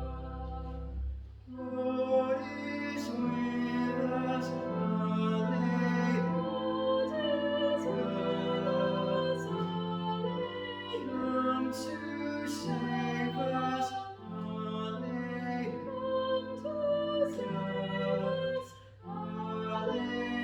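Music: a sung hymn with held accompanying chords that change every second or so, over a steady low hum.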